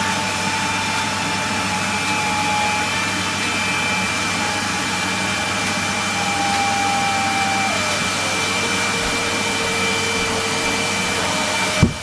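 Numatic Henry vacuum cleaner running steadily while it picks up shredded paper from a carpet, its whine dropping in pitch about two-thirds of the way through. A brief loud bump comes near the end.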